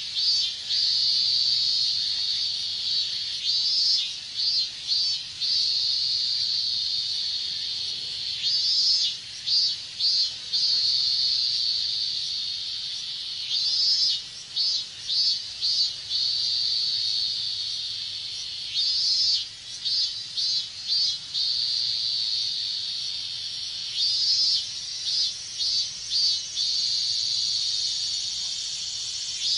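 Chorus of robust cicadas (minminzemi) singing: a steady high buzz, broken about every five seconds by a phrase of four or five pulsing calls.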